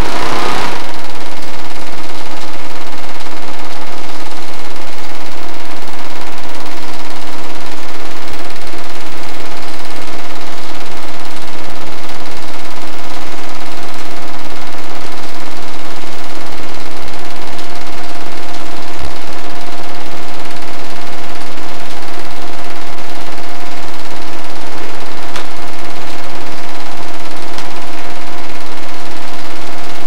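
8mm film projector running: a steady mechanical whir with a constant hum, after a short burst of noise right at the start.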